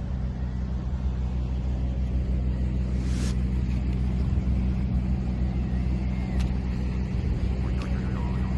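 An engine running steadily at a constant speed, a low droning hum, with a brief swish about three seconds in.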